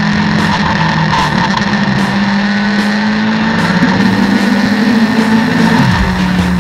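LVO2 race car engine running at high revs at speed, a steady drone that shifts slightly in pitch about six seconds in.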